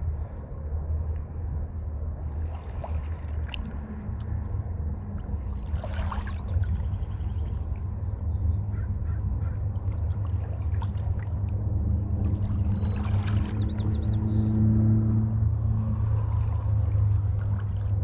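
A boat engine's low, steady rumble with a droning hum that grows somewhat louder past the middle. Crows caw three times over it, with a few faint high bird chirps.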